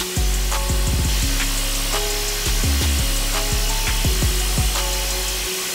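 Eastwood air-powered planishing hammer rapidly hammering a thick aluminum body panel: a fast, dense rattle, under background music with shifting bass notes.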